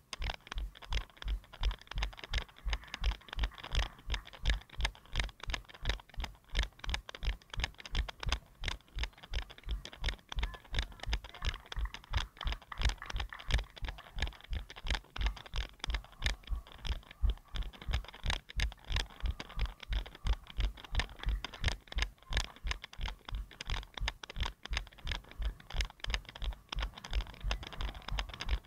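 A runner's footfalls jolting a head-mounted action camera, a steady beat of low thuds about three a second, over a steady hiss.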